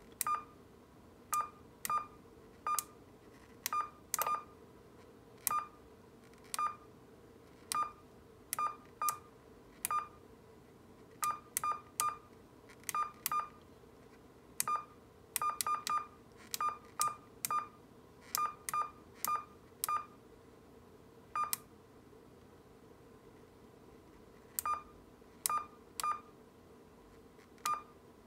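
AnyTone 5888UV III mobile transceiver's key-press beep: a short beep of about 1.2 kHz with each press as the menu is stepped through. There are dozens of beeps at uneven intervals, some in quick pairs, with a gap of about three seconds near the end.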